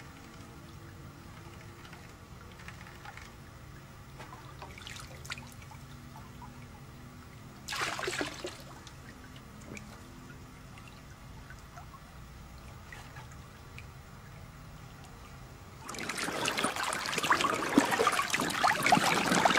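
Creek water trickling faintly, with a brief splash about eight seconds in; near the end, louder water rushing over rocks and through a bazooka sluice set in the creek.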